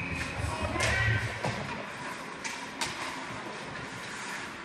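Ice hockey play at a rink, with murmuring voices from the stands and a few sharp clacks of stick and puck, about a second in and twice near the middle.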